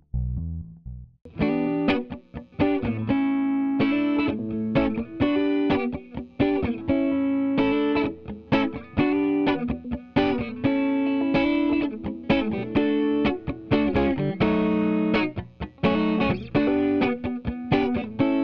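Electric guitar through an amp, played back through a Weight Tank WT-COMP compressor, playing a quick picked riff of single notes. It comes in just over a second in, after a low note dies away.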